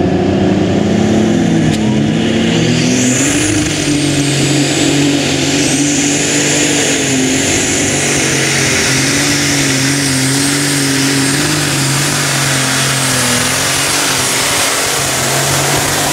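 Methanol-fuelled six-cylinder John Deere pulling-tractor engine running loud and steady, with a high whine that rises about three seconds in and then holds.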